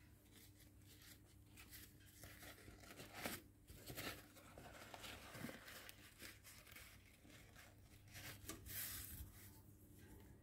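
Faint rustling of paper towel being handled and folded, with a few short soft clicks and a longer rustle near the end.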